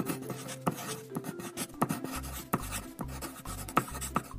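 Pencil scratching on paper in short, irregular strokes, over light background music whose bass line comes in about halfway through.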